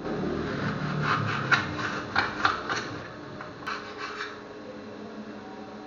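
An onion being peeled and cut with a knife over a plate, making a run of short rasping, crackling strokes through the first three seconds and a few more about four seconds in.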